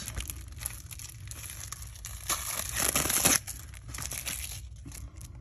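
Plastic shrink wrap being torn and crinkled off a Blu-ray case, with a louder stretch of crinkling from about two to three seconds in.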